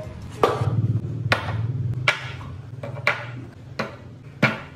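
Grooming-product bottles and jars being set down one after another on a tabletop: about six sharp knocks, spaced under a second apart.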